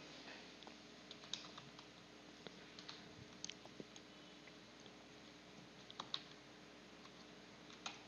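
Faint computer keyboard keystrokes, scattered and irregular, as a string of digits is typed in.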